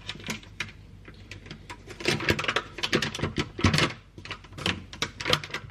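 Quick, irregular clicks and scrapes of a tablespoon working in flour and knocking on a mixing bowl, busiest in the middle.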